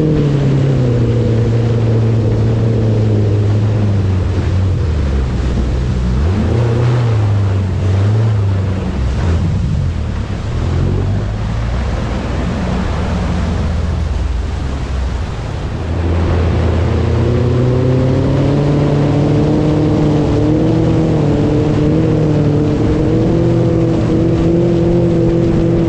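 An engine running with a pitch that drops over the first few seconds, sinks into a noisy rush in the middle, and climbs again about two-thirds of the way through.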